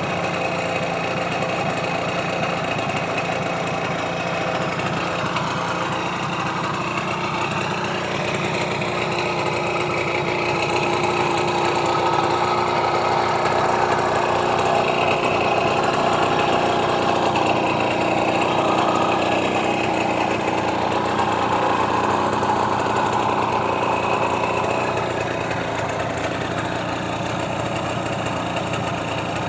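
Simson S51 moped's two-stroke single-cylinder engine running steadily, picking up speed a little through the middle and easing back near the end.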